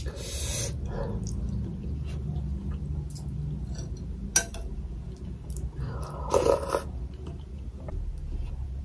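Close-up eating sounds: chewing and short slurps, one right at the start and a louder one about six seconds in, with a single sharp clink of a spoon against the ceramic soup bowl a little past four seconds, over a steady low hum.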